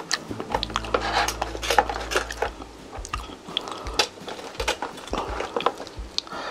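Crisp crackles and clicks of crispy roasted chicken and rice crust being handled and eaten, mixed with light clinks of tableware.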